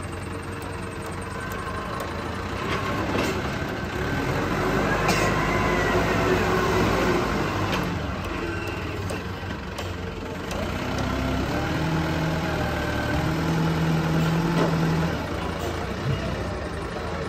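Wheel loader's diesel engine running, revving up twice for several seconds at a time as the machine drives and works its long-boom log grapple. A whine rises and falls in pitch over the engine while it revs.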